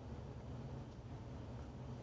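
Quiet room tone: a steady low hum with no distinct sounds.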